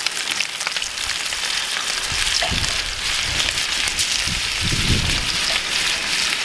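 New York strip steaks sizzling in a ripping hot cast iron pan as butter goes in: a dense, steady crackle. A couple of low dull bumps come about two and five seconds in.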